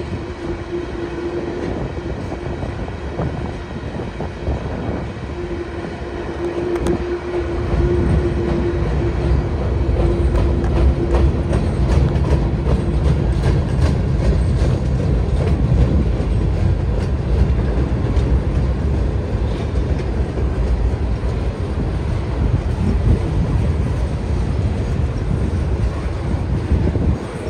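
Freight cars of a mixed freight train rolling past: steel wheels rumbling and clattering over the rails, growing louder about eight seconds in. A steady whine runs through the first half and fades out about halfway through.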